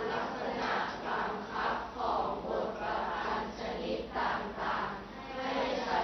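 Thai verse recited aloud in a sung, chanting melodic style (thamnong sanao), the syllables drawn out and rising and falling in pitch.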